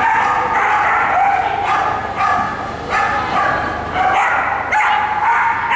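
A dog barking over and over, a bark roughly every half second to second, each bark pitched and fairly high.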